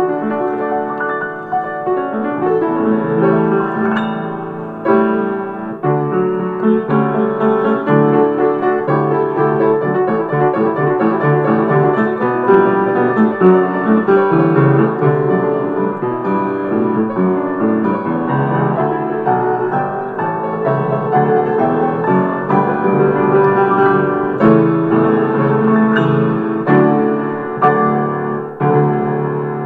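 Piano music playing many quick notes throughout.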